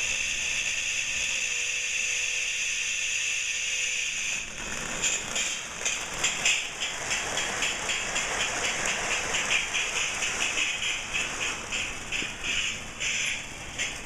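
An early-1970s Lionel toy electric train starting up: a steady high-pitched tone for about four seconds, then the locomotive running round the track with quick, even clicking. It runs unevenly, which the owner puts down to a break somewhere not giving the locomotive enough electricity.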